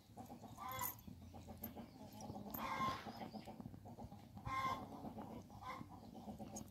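Chickens clucking: about four short calls a second or two apart, the longest and loudest a little under three seconds in.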